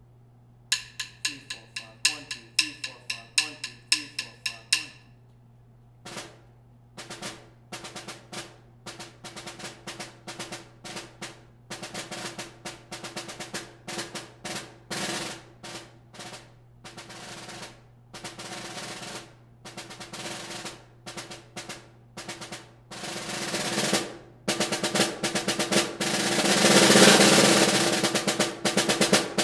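A count-off of sharp, ringing clicks from drumsticks struck together runs for about four seconds. Then solo snare drum playing begins on an old Slingerland 5x14 snare with an Evans Dry head, with quick varied strokes and the snares buzzing. Near the end a roll swells to its loudest.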